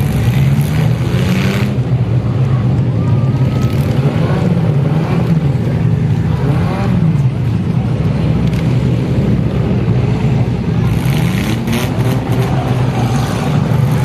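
Several demolition-derby compact cars' engines running and revving together, their pitches rising and falling as the drivers rev.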